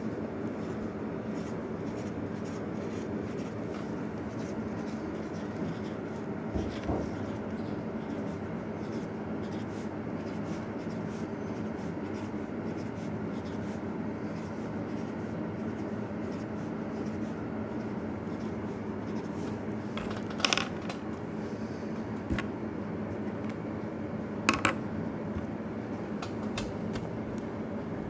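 Felt-tip marker drawing small circles on paper: many short, faint scratchy strokes over a steady background hum, with two louder clicks in the last third.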